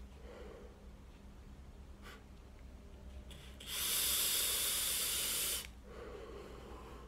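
A draw on an iJoy 5 RDTA fired on a mechanical tube mod: about two seconds of steady hiss of air pulled through the airflow over the firing coil, starting about halfway through, followed by a faint exhale.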